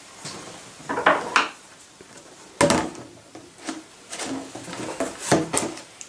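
Empty 5-litre plastic water bottle being handled and laid down on a wooden table: a string of separate knocks and plastic clatter, the loudest about two and a half seconds in.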